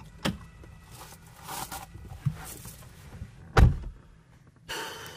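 Someone getting into a car: small knocks and rustling as he settles into the driver's seat, then the driver's door pulled shut with a single heavy thump about three and a half seconds in.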